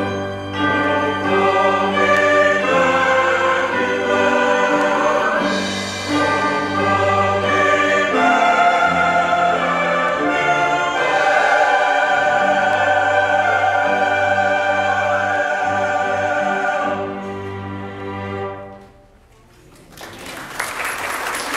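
Church choir singing with a small orchestra, ending on a long held chord that fades out about three-quarters of the way through. After a brief pause, the audience begins applauding near the end.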